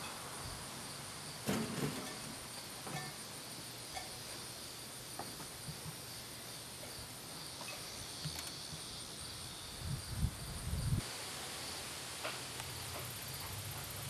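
Steady chirring of insects in outdoor ambience, with a few soft low knocks and bumps about a second and a half in and again around ten seconds in.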